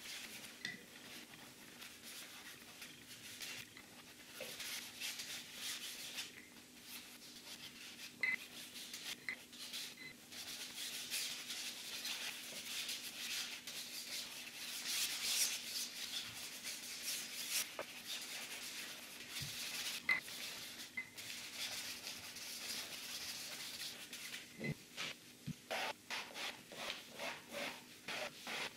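Paintbrush bristles scrubbing across a canvas in long sweeping strokes. Near the end, quicker separate strokes come about two or three a second. A faint steady hum runs underneath.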